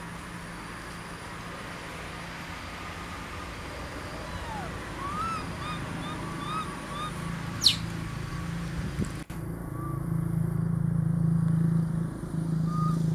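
A low, steady engine hum, like a motor vehicle running, that swells louder in the second half. A few short chirping calls come in the middle, with one sharp rising squeal about eight seconds in.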